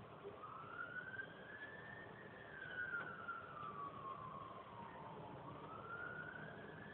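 Faint siren wailing, its pitch rising and then falling slowly over about five seconds before it starts to rise again near the end. A single click sounds about halfway through.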